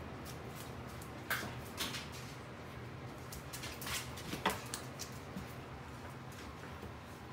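A German Shepherd moving about on a concrete floor: a few short clicks and scrapes, four or so in all, over a steady low hum of room noise.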